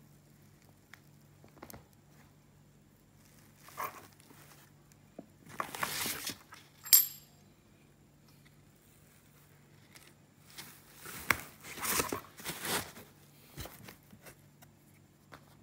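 Rustling and scraping of a cardboard box, foam inserts and a plastic bag as a twin-cylinder engine is lifted out and handled, in several irregular bursts. One sharp metallic clink comes about seven seconds in.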